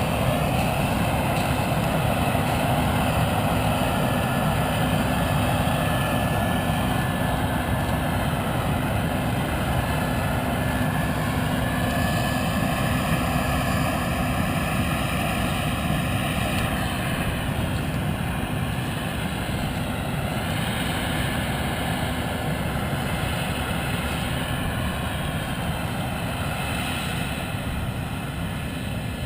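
Combine harvester running in standing corn: a steady diesel and machinery drone with a whine that bends up and down in the middle, easing off a little near the end.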